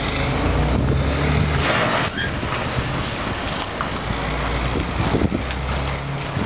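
A vehicle engine running at low speed, a steady low hum that fades for a couple of seconds about two seconds in and then comes back.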